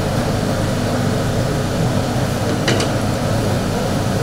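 Steady whirring hum and rush of kitchen equipment, with a short metallic clink about two and a half seconds in.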